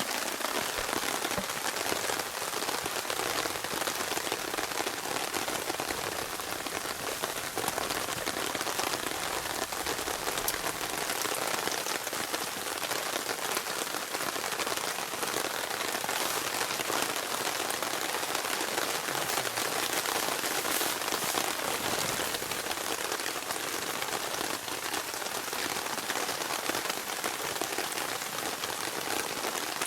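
Steady rain falling: an even hiss with many fine drop impacts ticking throughout.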